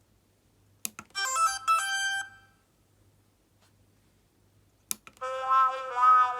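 DFPlayer Mini sound module playing short electronic sound-effect clips: a click, then a brief ringtone-like chime melody about a second long. After a pause of a couple of seconds, another click and a second electronic melody begins.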